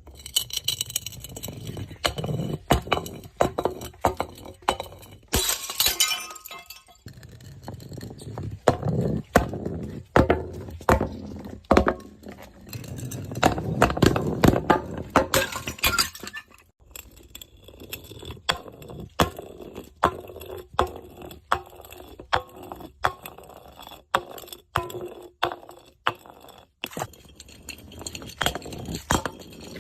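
Glass bottles breaking one after another: dozens of sharp cracks and crashes, about one or two a second, with clinking, ringing shards after some of them.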